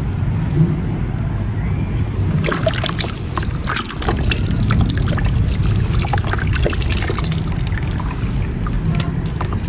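Mint-green marble-powder crumbles breaking apart in water, crackling and trickling. The crackles grow dense from about two and a half seconds in, over a steady low rumble.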